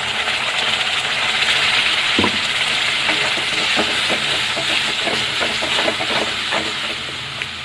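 Ground tomato and coconut paste sizzling in hot oil in a metal kadai, a steady frying hiss as it is stirred. A spoon scrapes and taps the pan in short clicks, and the hiss eases off near the end.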